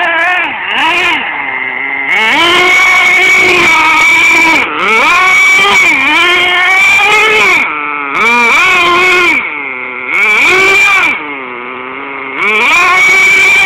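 Nitro RC car's small two-stroke glow engine revving hard as it spins donuts. The throttle is opened and eased about five times, so the high-pitched engine note climbs, holds, then dips again between bursts.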